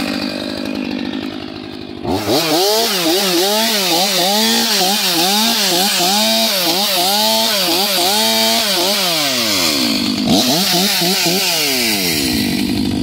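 Stihl MS 500i fuel-injected two-stroke chainsaw idling, then revved up sharply about two seconds in, its pitch swinging rapidly up and down for several seconds before dropping back to idle. It revs once more briefly near the end and settles back to idle.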